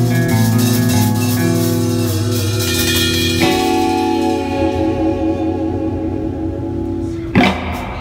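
Live band music with electric guitar chords and drums: held chords change about three and a half seconds in, and a single sharp final hit near the end closes the song.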